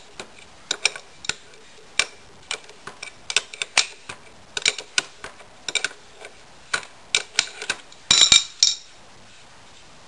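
Irregular metallic clicks and clinks of a large adjustable wrench working a tight motorcycle rear axle nut loose, the jaws knocking against the nut as the wrench is turned and repositioned. A louder clatter of metal comes about eight seconds in.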